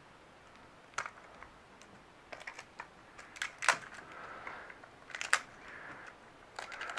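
Wrapper on a plastic surprise egg being crinkled and torn off by hand: scattered sharp crackles and rustles, the loudest about three and a half and five seconds in.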